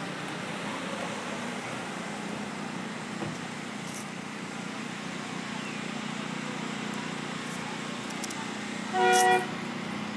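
A vehicle horn gives one short beep about nine seconds in, over a steady low engine hum.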